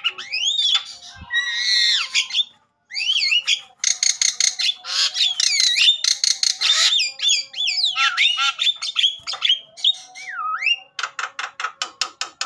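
Javan myna calling vigorously: sweeping whistles that rise and fall, mixed with harsh squawks and chattering. Near the end comes a rapid, even run of clicks, about seven a second.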